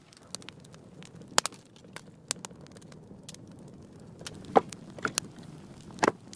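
Small wood fire of kindling and split logs crackling, with sharp pops scattered through a low hiss and a couple of louder pops in the second half.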